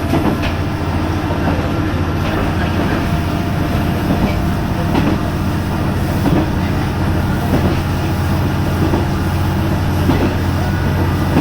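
Diesel railcar on the Koumi Line running along the track, heard from inside the car: a steady low engine and running drone, with a sharp wheel click over a rail joint every couple of seconds.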